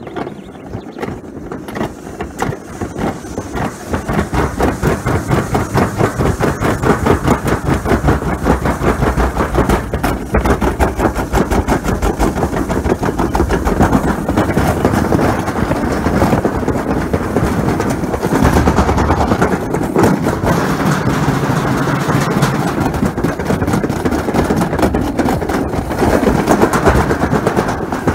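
Summer toboggan sled running down a metal trough track, its wheels giving a loud, fast, continuous rattle. The clatter builds over the first few seconds as the sled picks up speed, then holds steady.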